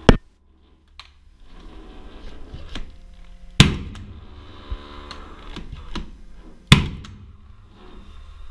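Fasteners being driven through an aluminium ceiling-edge profile: three sharp, loud single shots about three seconds apart, each leaving a short metallic ring, with a few fainter clicks and knocks between them.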